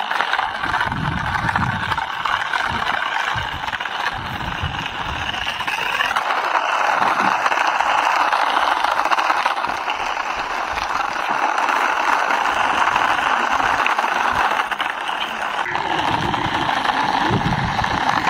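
Toy remote-control car driving on rough concrete: its small electric motor and gears whir steadily as the plastic wheels roll over the grit, with low rumbles now and then.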